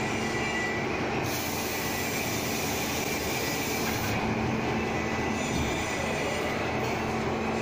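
Automatic sand molding machine running, a steady mechanical noise with a low hum and a thin high whine, and a burst of hiss from about one to four seconds in.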